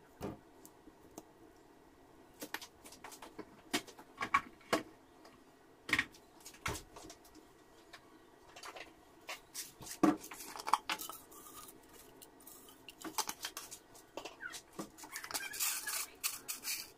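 Kitchen handling noise: scattered clicks and knocks of a soy sauce bottle's plastic flip cap and of ingredients and containers against a stainless steel cooking pot and the counter, with a denser rattle and rustle near the end.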